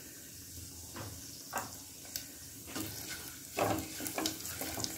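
Whole spices sizzling faintly in hot ghee in a handi. A wooden spatula stirs through them, with a series of short scrapes and knocks against the pot starting about a second in.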